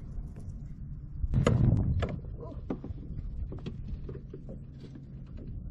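Knocks, thumps and light clicks on a kayak as a freshly landed smallmouth bass thrashes and is handled, with one louder dull thump about a second and a half in.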